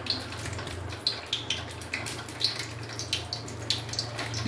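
Hot cooking oil crackling in a pan, with irregular sharp pops over a faint hiss and a steady low hum underneath.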